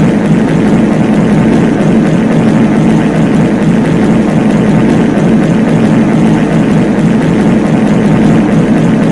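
Many copies of a reverb fart sound effect layered on top of each other, merging into a steady, loud, low drone with no single fart standing out.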